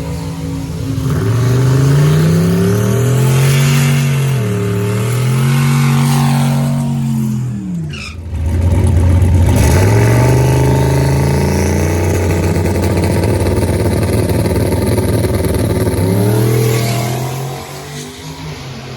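High-horsepower drag car engine revving hard for several seconds, its pitch wavering up and down, then launching at full throttle about eight seconds in. The engine pulls up through the revs with a gear change and fades near the end as the car goes down the track.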